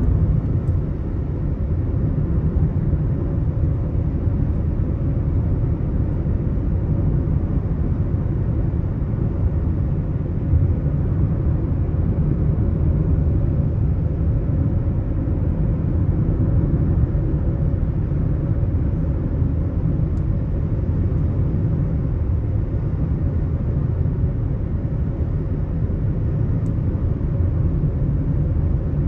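Steady low road rumble of a car driving at highway speed, with no changes or separate events.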